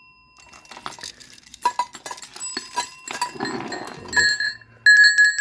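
Small hand bell handled and jingled with scattered clinks and short rings, then struck once clearly about five seconds in and left ringing.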